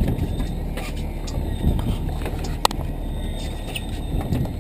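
Fishing boat's motor running with a steady low rumble, and a single sharp knock about two and a half seconds in.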